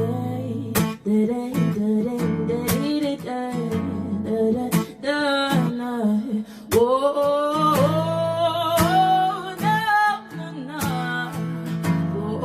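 A woman singing with a strummed guitar accompaniment, holding long wavering notes about halfway through.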